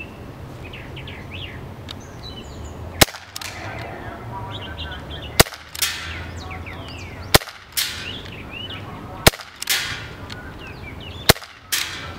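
Umarex H&K USP CO2 airsoft pistol fired five times, one sharp pop about every two seconds. Each pop is followed within half a second by a softer, noisier rattle.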